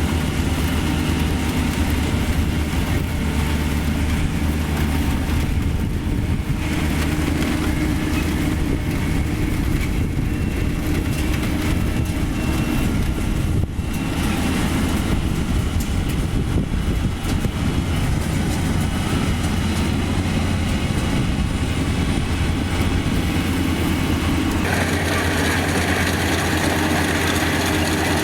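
Kubota DC-35 combine harvester's diesel engine running steadily with a low hum. About three-quarters of the way through, a harsher higher-pitched noise joins in and stays.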